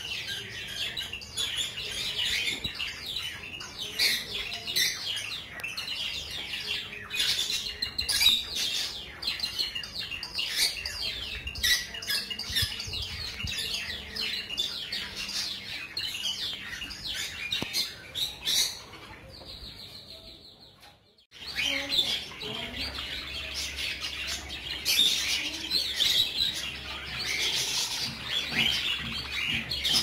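A flock of Java sparrows chirping in an aviary: many short, overlapping calls. The chirping fades out briefly about twenty seconds in, then starts again.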